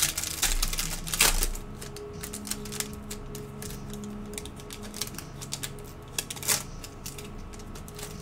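Foil trading-card pack wrapper crinkling and tearing as it is ripped open by hand: a dense run of sharp crackles, with a louder rip about a second in and another about six and a half seconds in.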